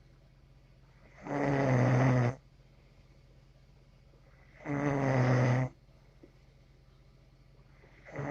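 Steady, rhythmic snoring: a loud, pitched snore lasting about a second comes roughly every three and a half seconds, twice in full, with the next one starting near the end.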